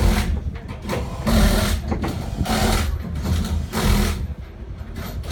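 Car engine running with a steady low rumble, overlaid by short bursts of hiss that come roughly once a second.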